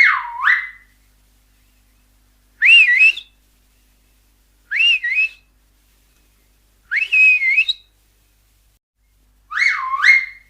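Finger whistling: five short whistles about every two seconds, each a quick glide in pitch. The first and last swoop down and back up, and the three in between rise higher and waver.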